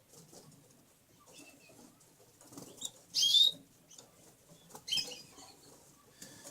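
Canaries in their cages: one sharp high chirp about three seconds in and a fainter one about two seconds later, over soft fluttering and rustling of birds moving about.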